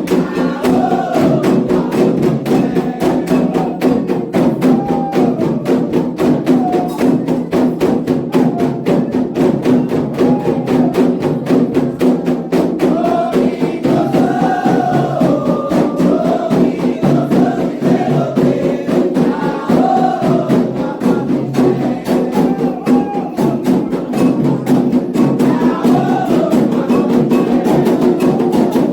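Candomblé ritual music for the orixás: atabaque hand drums and a struck bell playing a fast, continuous rhythm under group singing.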